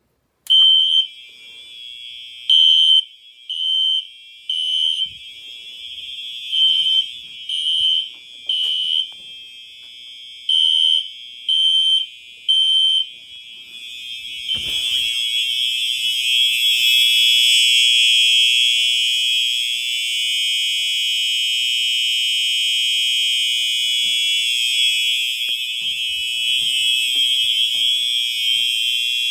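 Fire alarm horns going into alarm: loud high-pitched blasts in a temporal-three pattern, three pulses about a second apart and then a pause, over a quieter steady tone. About fourteen seconds in the sound turns continuous and stays loud.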